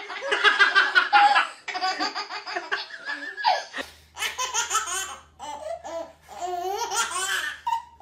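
Babies laughing: a baby laughing hard in quick bursts, then after a cut about four seconds in, another baby laughing and squealing over a low steady hum.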